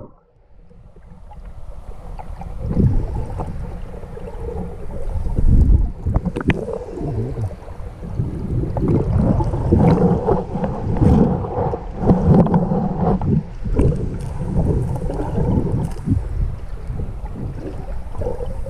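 Muffled, irregular sloshing and gurgling of water heard through a camera held underwater, with a few sharp knocks.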